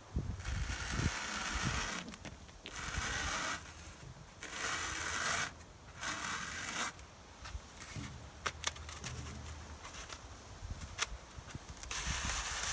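Knife blade sawing lengthwise through a foam pool noodle: a series of scraping strokes of about a second each with short pauses between them, and a few sharp clicks in the second half.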